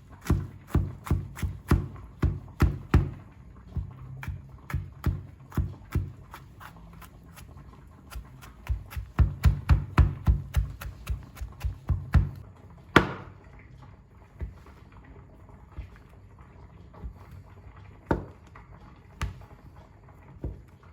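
A fast run of light knocks, about three to four a second, with a brief lull and then a denser run, followed by a few louder single knocks, the loudest just past the middle.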